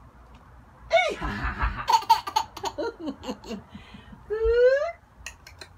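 A baby laughing in bursts: a rising high-pitched laugh about a second in, a run of giggles after it, and another rising laugh near the end.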